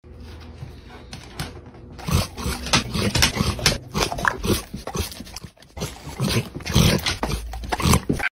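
Black Labrador retriever vocalizing in a run of whines, in close repeated bursts that start about two seconds in.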